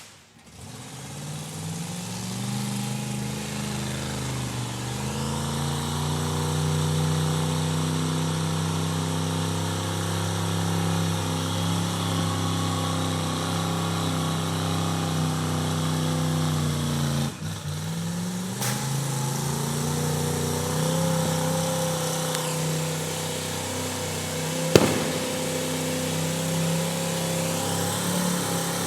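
Car engine running: its pitch rises over the first few seconds and then holds steady. About 17 seconds in it dips briefly and climbs back, and a single sharp click sounds near 25 seconds.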